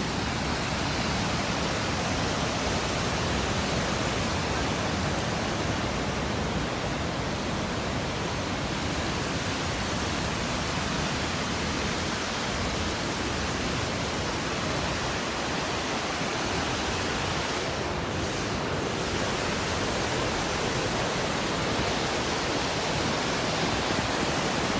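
Steady roar of the Gullfoss waterfall, the Hvítá river pouring over its two tiers, heard from close by.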